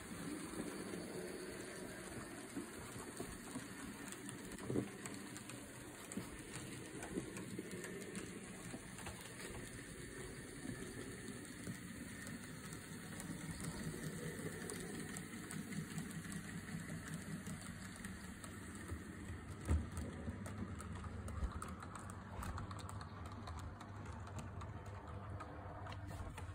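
Model MH4 steam locomotive hauling a mixed train along layout track: a steady running sound from the small electric motor and the wheels on the rails, with scattered light clicks. A low hum grows stronger from about twenty seconds in.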